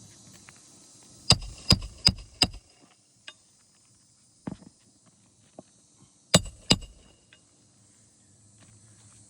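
Hammer blows on a roof snake driving roofing nails back in under a shingle: four sharp metallic strikes in quick succession, then a pause with a few light taps, then two more strikes. Insects hiss steadily in the background.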